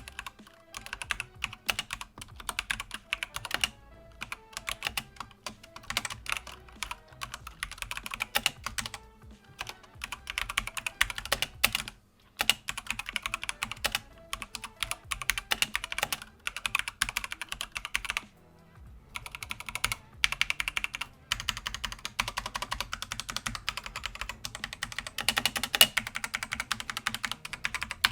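Typing on a ZET Blade Kailh Black Optical keyboard: fast, irregular clacking of optical switch keystrokes. There are brief pauses about 12 and 19 seconds in. The keyboard is fairly loud.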